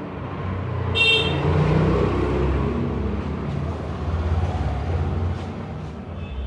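Passing road traffic: a vehicle's engine rumbling, with a short horn toot about a second in.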